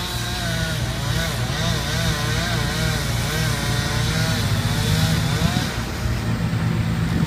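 Wood chipper's engine running steadily, with a whine above its drone that wavers up and down in pitch.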